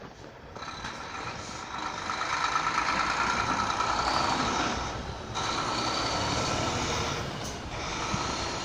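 A heavy truck going by, its engine and tyre noise swelling to a peak a few seconds in, dipping briefly, then rising again before fading.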